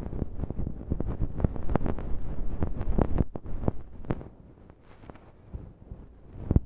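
Bonten, the fluffy cotton puff on an ear pick, brushing and rubbing over the microphone in a dense, soft, scratchy rustle, fading to a quieter rustle about four seconds in.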